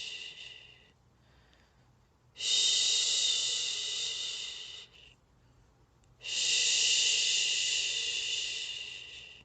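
A person shushing, long soothing 'shhh' sounds for a baby, each held for about three seconds and fading at its end, with short pauses between. One shush trails off near the start, then two more follow.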